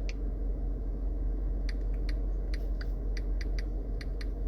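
A steady low hum with a few light clicks at the start, then an irregular run of about ten light clicks from a little under two seconds in.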